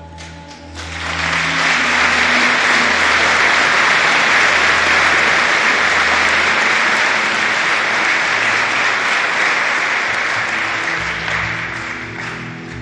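Large audience applauding, starting about a second in, holding steady, and fading near the end.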